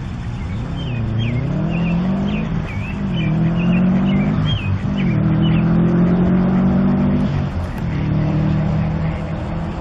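A motor engine running, its pitch dipping and rising several times as it changes speed.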